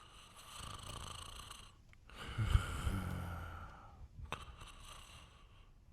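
A man snoring: three slow, breath-like snores, the middle one the loudest, with a low rumble.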